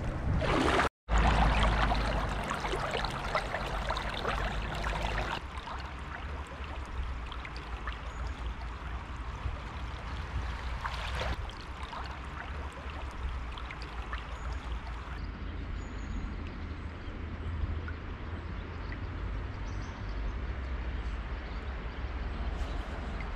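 Kayak paddle strokes on a river, with water splashing, trickling and gurgling around the blades and hull over a low steady rumble. A brief dropout about a second in, after which the water is louder for a few seconds and then quieter.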